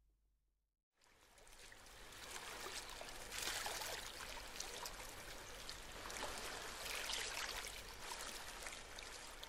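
Moving water: a steady trickling, lapping wash that fades in about a second in and swells twice.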